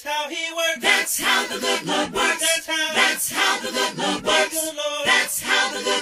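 Gospel music with a choir singing.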